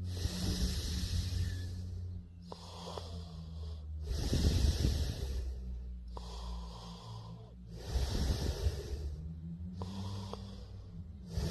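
A person snoring in slow, regular breaths: a low fluttering snore about every four seconds, with breathy hisses between, over a steady low hum.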